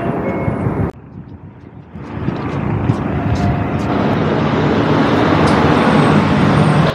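City street traffic noise, cut short about a second in, then a quieter stretch before a long swelling rush of vehicle noise that grows louder until it cuts off suddenly.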